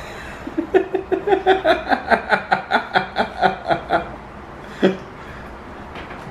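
A person laughing in a quick run of about twenty pitched bursts, about six a second, for some three seconds, then one more short burst about a second later.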